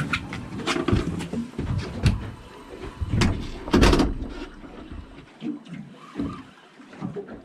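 Wind buffeting the microphone in irregular gusts, with scattered clicks and knocks; it eases off about five seconds in.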